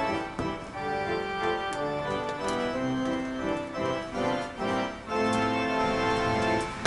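Background music: sustained keyboard chords with an organ-like tone, changing every half second or so.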